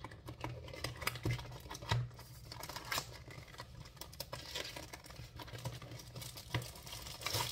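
Paperboard headphone box being opened by hand: irregular scrapes, taps and crinkles as the flap and packaging are worked loose, with a few sharper knocks in the first few seconds.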